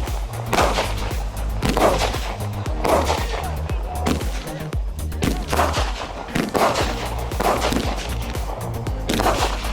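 A 16-shot consumer firework cake firing shot after shot, a sharp bang with a brief crackling tail about once a second. Background music with a steady bass plays underneath.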